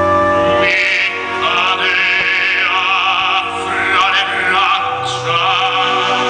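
Operatic singing with strong vibrato over an orchestral accompaniment, played as the soundtrack of a fireworks show.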